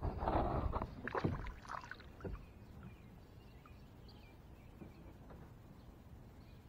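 Water splashing in short, loud bursts for about the first two seconds as a small hooked fish thrashes at the surface, then only faint water sounds.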